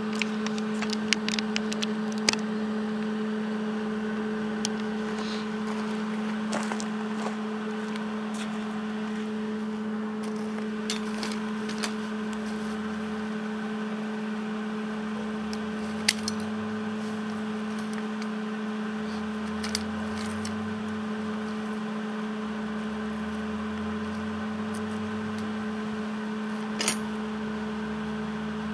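A steady electrical hum with scattered light clicks and taps. A lower hum comes and goes several times, each lasting a second or a few, in the second half.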